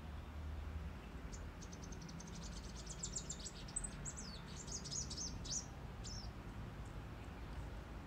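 Purple sunbird calling: a rapid, high twitter that starts about a second in as a fast run of ticking notes and turns into quick sweeping notes, lasting about five seconds.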